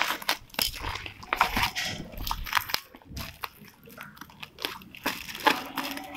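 Plastic packaging and bubble wrap crinkling and crackling irregularly as hands work at it, with scissors cutting through the plastic courier bag.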